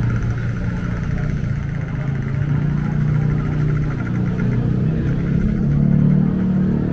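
Street traffic: engines of passing motorbikes and cars running close by, a low engine hum that swells twice.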